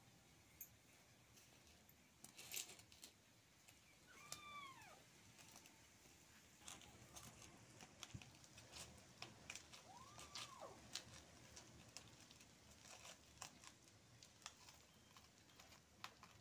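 Near silence with faint, irregular soft clicks of a hand squishing flour batter in a steel bowl. Two faint drawn-out calls, each rising and then falling in pitch, come about four and ten seconds in.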